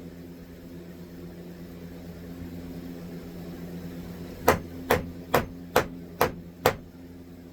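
Six evenly spaced hammer blows, about two a second, about halfway through, as a 2x4 board is knocked into place in the roof framing. A steady low hum runs underneath.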